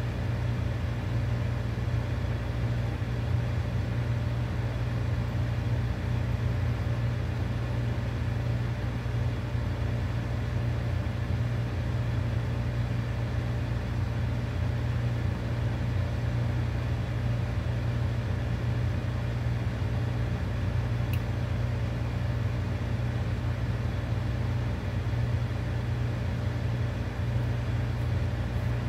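Pot of chicken soup boiling under a glass lid on an electric stove: a steady low rumble and hum with no breaks.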